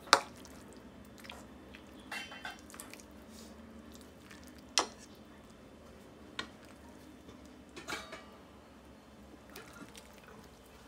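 A metal ladle clinks and knocks against a steel pot and a ceramic soup bowl as soup is ladled and poured into the bowl, with a trickle of liquid. A few sharp knocks come spaced through it, and the loudest is at the very start.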